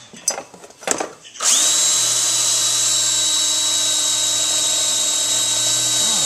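Electric drill with a large, dull bit boring into a plastic cutting board. The steady whine stops at the start, gives two short bursts, then spins back up about a second and a half in and runs steadily.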